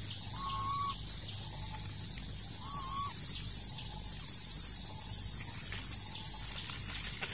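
A steady, high-pitched drone of insects in the forest, with two short whistled calls about two seconds apart.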